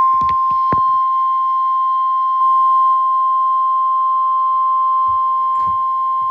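NOAA Weather Radio warning alarm tone: a single loud, steady beep-like tone held unbroken, the attention signal that comes before a tornado warning.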